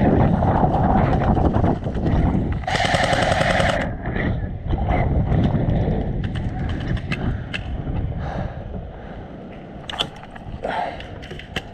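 Airsoft guns firing: scattered single shots, with a burst of rapid full-auto fire lasting about a second, around three seconds in, over a heavy low rumble.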